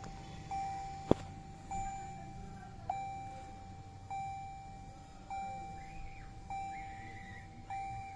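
Vehicle warning chime dinging steadily, about once every 1.2 seconds, with one sharp click about a second in.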